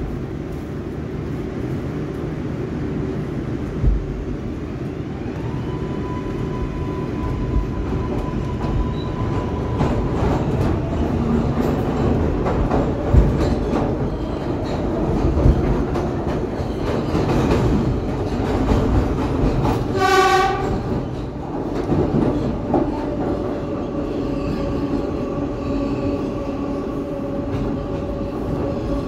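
R142A subway train running between stations, heard from inside the car: a steady rumble with rail clatter. A thin high whine comes in about five seconds in and fades a few seconds later. About twenty seconds in there is a short horn blast of under a second.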